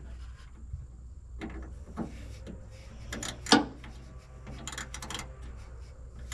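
Scattered clicks, scrapes and knocks of a Torx driver and hands working at screws inside a pickup tailgate, with one louder knock about three and a half seconds in, over a steady low hum.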